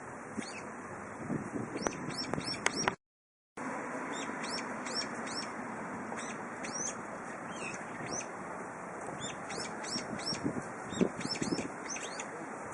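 Songbirds calling in many short, high chirps, in quick runs, over a steady rush of wind. The sound cuts out completely for about half a second around three seconds in.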